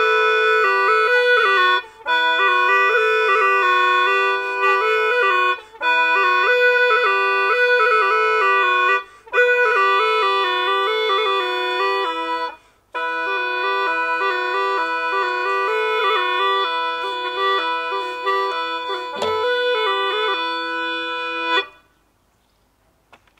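Hulusi, a gourd flute with free reeds and drone pipes, playing a melody over a steady drone, with short breaks for breath every few seconds; the playing stops near the end.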